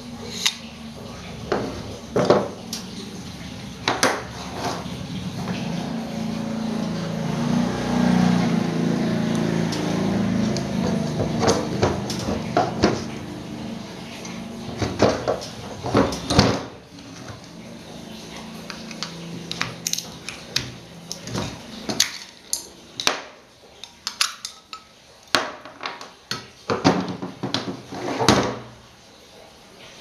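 Metal parts of a dismantled table fan motor (stator, rotor and metal end housings) clinking and knocking against each other and the wooden workbench as they are handled and fitted together, in many separate sharp clicks, thicker in the second half. A low steady hum underlies the first half and stops about halfway through.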